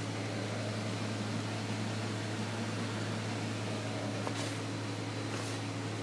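Steady low machine hum with hiss, like a fan running in a small room, and two brief faint scrapes near the end.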